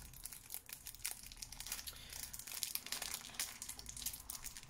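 Clear plastic film sealing a small cardboard lotion box crinkling and tearing as it is picked open by hand, a run of quick crackles; the wrap is tight and slow to get off.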